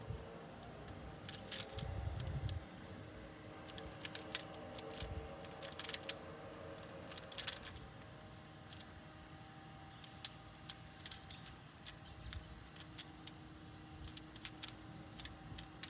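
Plastic Pyraminx puzzle being turned quickly by hand during a solve: irregular clicks and clacks as its pieces twist.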